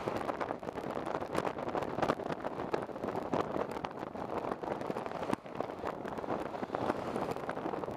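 Riding inside a moving city bus: steady engine and road noise in the cabin, with many small rattles and knocks throughout.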